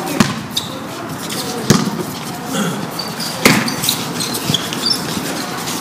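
A basketball bouncing on a hard court floor: a few separate, uneven thuds, the loudest two about a third and two-thirds of the way through.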